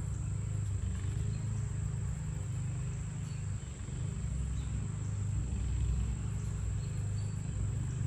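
Outdoor ambience: a steady, high-pitched insect drone over a low, continuous rumble.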